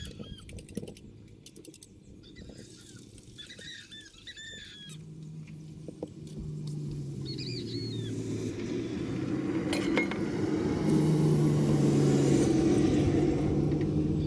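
A motor vehicle approaches and passes on the road, its engine rumble building from about halfway through and loudest near the end. Birds chirp in the first half, and there are a few light clicks at the start.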